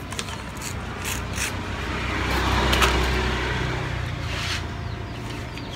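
Sheets of newspaper crinkling in the hands as they are pressed onto a whole roast pig, with a passing vehicle's rumble swelling to a peak about three seconds in and fading away.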